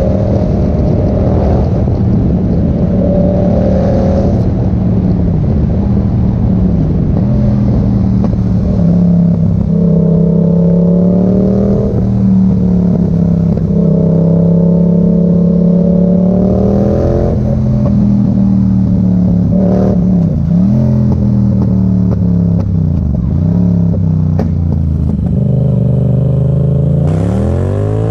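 Yamaha MT-07's 689 cc parallel-twin engine running through an Arrow exhaust with the dB killer removed. The engine holds a steady pitch for long stretches, dips and picks up again several times, and revs up sharply near the end.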